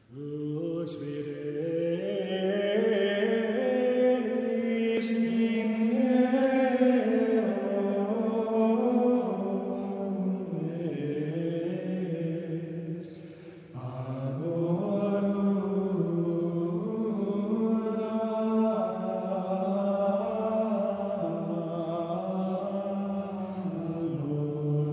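Men's voices chanting Gregorian chant together, in two long phrases with a short break about thirteen seconds in.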